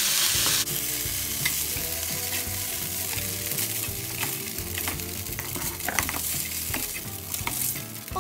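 Shrimp sizzling in oil in a nonstick frying pan, with a slotted plastic spatula scraping and knocking against the pan as the shrimp are scooped out. The sizzle is loudest for the first half second, then settles lower under the repeated scrapes and taps.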